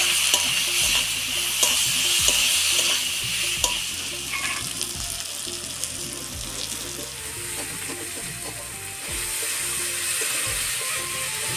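Diced potatoes, onion and green chillies sizzling in hot oil in a kadai, stirred and scraped with a metal spatula. The sizzle is loudest for the first few seconds, then settles lower.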